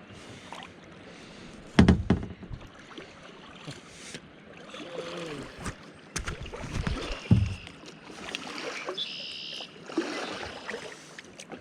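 Kayak paddling: paddle strokes dipping and splashing in the water, with several sharp knocks, the loudest about two seconds in.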